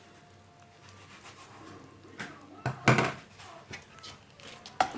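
Seasoning being added to a pot of rice: a few short knocks and rubs of a container and utensil, the loudest about three seconds in.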